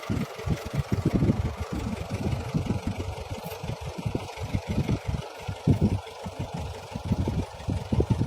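An engine idling with a choppy, uneven low rumble.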